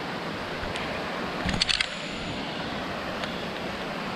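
Waterfall water rushing steadily, with a short cluster of sharp clicks about a second and a half in.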